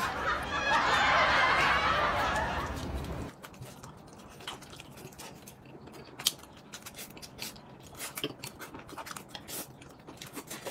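A person slurping noodles loudly for about three seconds, then quieter chewing with small scattered clicks.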